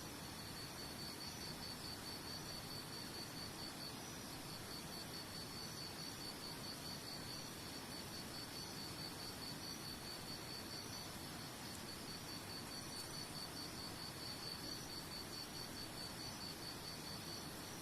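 A cricket chirping in a high, even pulse several times a second, pausing briefly twice, over a steady hiss of running water.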